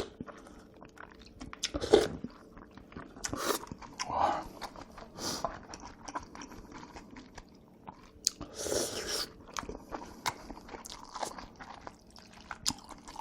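Close-miked eating of Korean-Chinese noodles (jjajangmyeon and jjamppong): wet chewing and mouth clicks, with several louder noisy bursts from slurping or biting, the longest a little after the middle.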